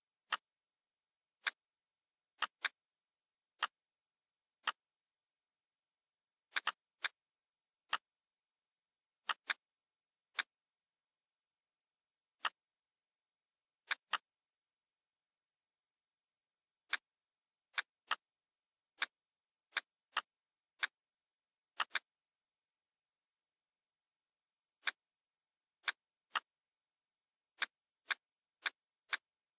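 Computer mouse clicking at irregular intervals, single clicks and quick double clicks, over silence.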